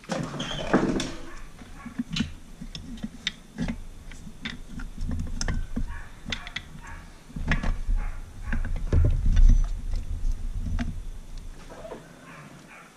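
Irregular metal clinks and taps of a piston and piston ring compressor being worked into a cylinder of a Mercury Thunderbolt 500 outboard powerhead block. A run of heavier knocks comes in the second half.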